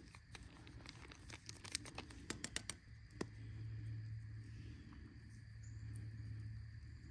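Small foil seasoning packet crinkling as it is handled and torn open, with a quick run of sharp crackles about two seconds in and one more a second later. A low steady hum comes in after that.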